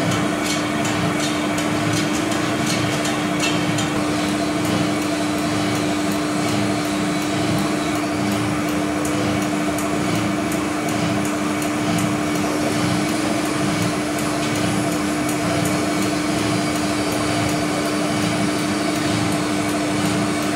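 Mazak conventional lathe running under load with a steady hum, its tool turning the crown on the rim of a large spoked flat-belt pulley. A light rhythmic ticking sounds over the first few seconds.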